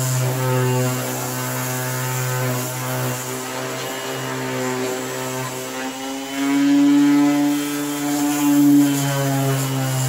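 Electric random orbital sander running steadily against a plastic headlight lens, sanding off the yellowed haze. About six seconds in, its hum drops in pitch and grows louder as the pad is pressed harder, then comes back up near the end.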